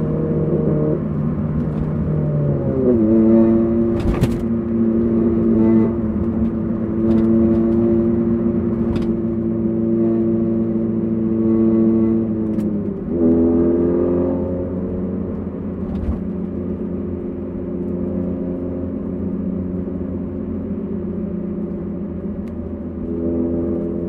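Honda Civic Type R FD2's 2.0-litre K20A four-cylinder engine and exhaust running at steady cruising revs. The note shifts in pitch a few times as the throttle changes, and there are a few sharp clicks.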